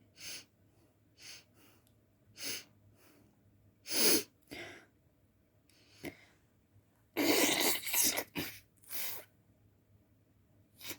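A person sneezing uncovered, several sneezes in a row with smaller breaths between; the loudest and longest comes a little past seven seconds in, with another strong one about four seconds in.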